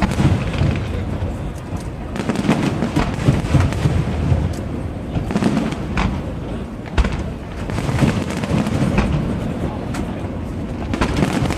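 Fireworks display going off: a steady rumble of booms with many sharp cracks and pops over it, a few louder bangs standing out partway through and near the end.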